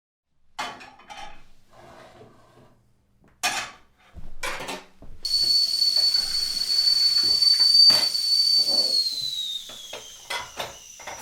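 A few clattering knocks of pots and dishes, then a stovetop kettle whistling at the boil: a steady high whistle over a hiss of steam that slides lower in pitch and fades near the end.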